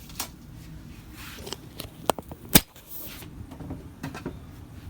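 Scattered clicks and knocks as metal printer rods and their packaging are handled, with a louder knock about two and a half seconds in.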